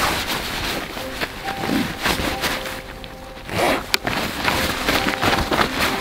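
Rustling and crinkling of a nylon stuff sack holding a Hilleberg Nallo tent as it is handled, with several louder rustles and small clicks along the way.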